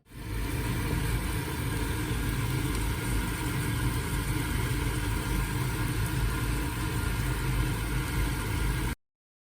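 A steady mechanical hum with a low drone, starting abruptly and cutting off suddenly about nine seconds in.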